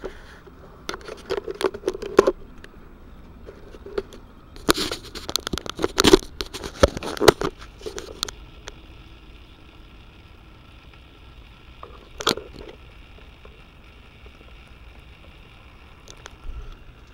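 Handling noise from the camera being picked up and moved in close: bunches of crackly clicks, scrapes and knocks in the first half, then two more short knocks later, over a faint steady hiss.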